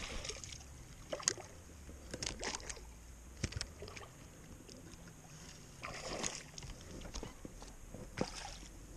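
A hooked fish being reeled in to the side of a small boat: scattered knocks and rustles from the spinning reel and rod handling, with a splash near the end as the fish thrashes at the surface.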